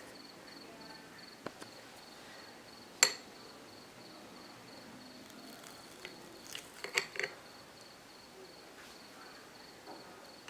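Faint, steady, rapid high-pitched cricket chirping. A single sharp click comes about three seconds in and a few more clicks come about seven seconds in.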